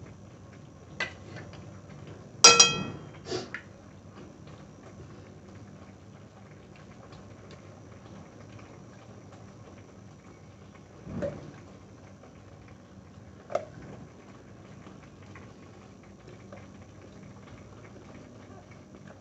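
Ground masala paste frying softly in oil in a kadhai on a low flame, being sautéed until the oil separates. A spoon knocks against the pan a few times; the loudest is a ringing metal clink about two and a half seconds in.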